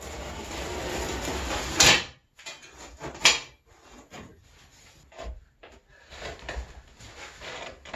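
Carpet being handled and fitted over a wooden cat-tree platform: a scraping, rustling rush for about two seconds ending in a sharp crack, then scattered knocks and rustles, with another sharp crack a little over three seconds in.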